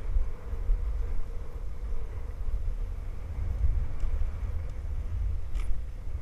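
Steady low rumble of a dog sled running over a packed snow trail, with wind buffeting the camera microphone. A single sharp click comes about five and a half seconds in.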